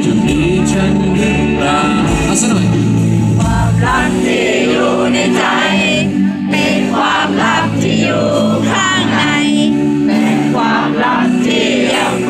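Live band playing a song on electric guitars, drums and keyboard, with several voices singing along.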